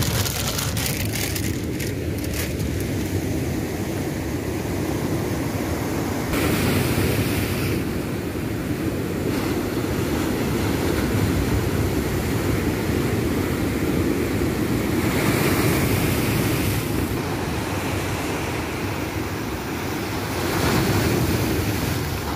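Rough sea surf washing over rocks: a steady rush of water, rising several times as bigger waves break. Wind buffets the microphone, and there is some light crackling in the first couple of seconds.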